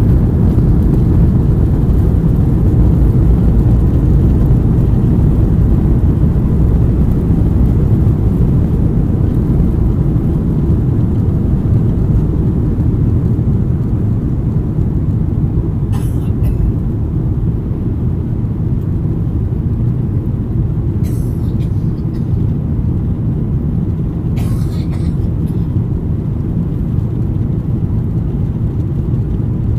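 Cabin noise inside a Boeing 737-800 taking off: its CFM56-7B jet engines at takeoff power give a loud, steady low rumble through the lift-off and into the climb, easing slightly partway through. Three brief higher-pitched noises break in near the middle and later.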